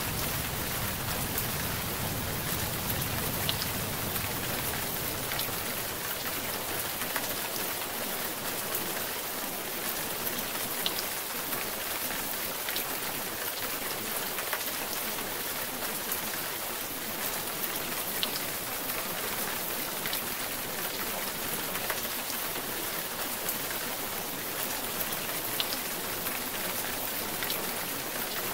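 Steady rain ambience with a few scattered drop ticks, used as the masking track of a subliminal recording.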